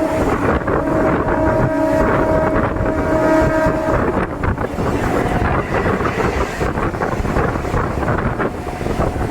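DEMU express train running, heard from on board: continuous loud rail and running noise with wind buffeting the microphone, and a steady whine over it that stops about four seconds in.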